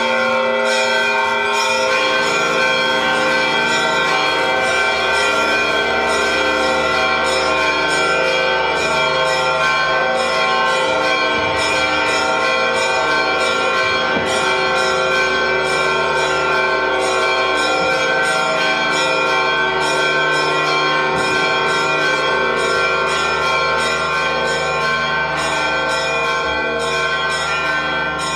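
Church bells pealing without a break: many rapid strikes layered over long ringing tones. They are rung to announce that the Holy Fire has come out of the tomb.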